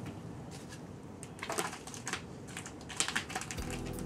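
A cat playing with a feather wand toy: a few short bouts of light rustling and clicking as it bats and paws at the toy.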